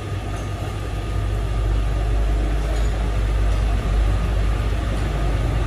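Belt-driven metal lathe running with its chuck spinning: a steady low machine hum with a thin whine above it, growing louder about a second and a half in.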